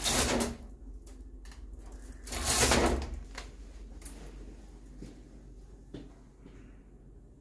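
A hotel room cupboard door or drawer being slid open and shut: two rushing slides about two seconds apart, followed by a few light clicks and knocks.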